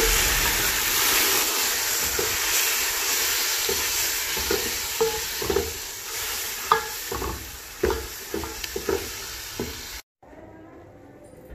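Grated tomato and onion sizzling in hot oil in a metal pot, with a wooden spoon stirring and knocking irregularly against the pot from about halfway. The sizzle stops abruptly near the end, leaving faint background noise.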